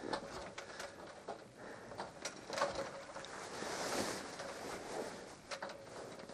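Faint water sloshing and lapping along the hull of a becalmed sailboat rolling on the swell, swelling about four seconds in, with scattered small clicks and knocks.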